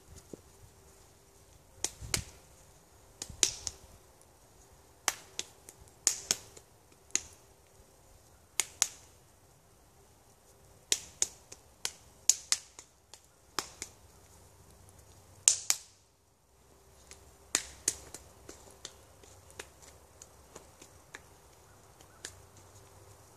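Sharp hand claps and palm slaps, struck in an irregular series, often two or three in quick succession, as a man pats and strikes his hands against his head and body.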